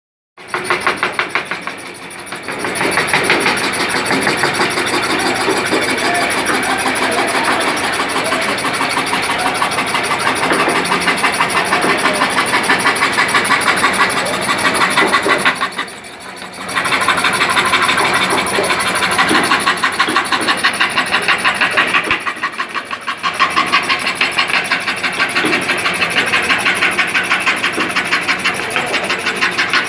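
Motor-driven scroll saw with a reciprocating wooden arm, its blade cutting a curved line through a thick wooden plank with a rapid, rhythmic chatter. The sound dips briefly three times.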